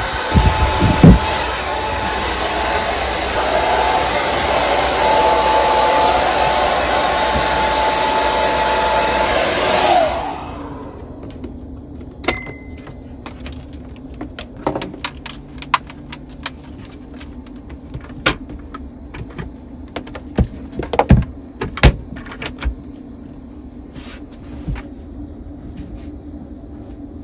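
Handheld hair dryer blowing, a rush of air with a steady whine, which stops abruptly about ten seconds in. Scattered light clicks and knocks follow.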